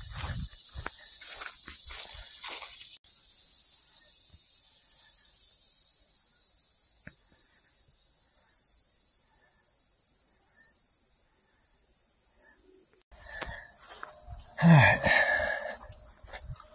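Steady high-pitched drone of summer insects. Footsteps on a grassy trail are heard in the first few seconds and again near the end, with one short loud sound about fifteen seconds in.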